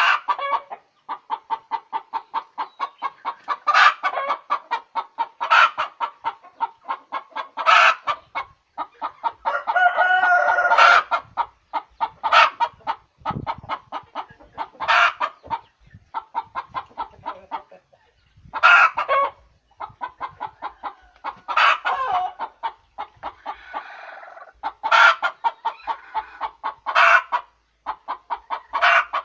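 Hen's egg-laying cackle: a steady run of rapid clucks broken every couple of seconds by a louder, sharper squawk, with a longer drawn-out call about ten seconds in.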